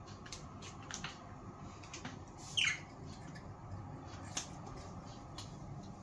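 Pet budgerigars chirping in short, sharp, scattered notes, with one louder call that falls steeply in pitch a little before halfway and another sharp chirp later on.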